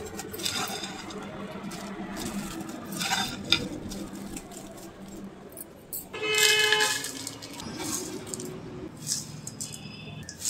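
A steel slotted spoon stirring and tossing dry puffed rice in a pan: rustling grains and repeated scrapes and clicks of the spoon against the pan. About six seconds in a short horn-like tone, held for under a second, is the loudest sound.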